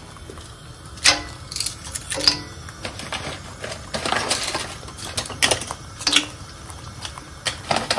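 Kitchen clatter: dishes and utensils knocked and set down, in irregular clicks and short rattles.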